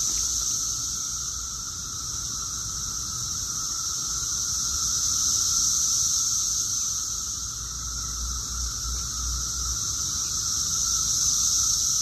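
Chorus of Brood X periodical cicadas: a continuous high-pitched drone with a weaker, lower steady tone beneath it, slowly swelling and fading.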